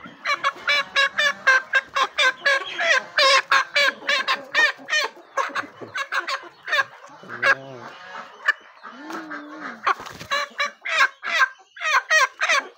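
A flock of chickens clucking busily in quick short calls while pecking at feed on the ground, with a couple of lower, drawn-out calls in the middle.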